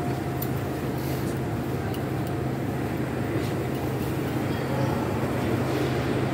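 An 81-740 metro car standing at a station with its doors open: a steady low hum from the train's equipment, with a few clicks and shuffles of passengers stepping aboard.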